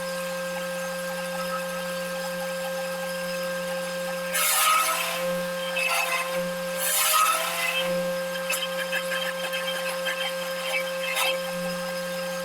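A wood shaper's motor runs with a steady hum and whine. Twice, about four and seven seconds in, the cutter bites into the wood with a short, loud rasping cut, followed by lighter scraping and a few clicks.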